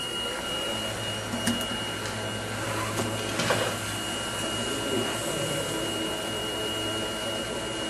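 Squid ring-cutting machine running as whole squid bodies pass through its blades on the conveyor and are sliced into rings. It makes a steady low hum and a high whine, with a few short clicks.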